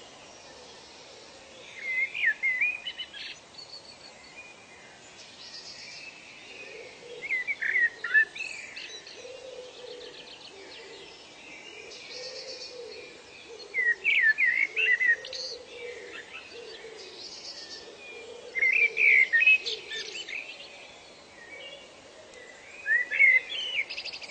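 Birdsong: one bird sings the same short phrase of quick, sweeping high notes about every five seconds, five times. Other birds chirp faintly behind it, and a low call repeats every couple of seconds.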